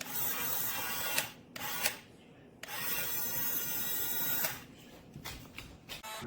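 Small electric motor and plastic gearbox of a toy RC dump truck whirring in bursts. It runs for about a second, gives a short burst, then runs for about two seconds, with a few short blips near the end.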